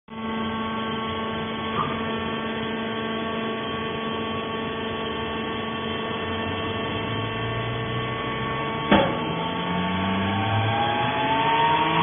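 Vertical hydraulic baler's electric motor and pump running with a steady hum. There is a sharp knock about nine seconds in, and rising tones near the end.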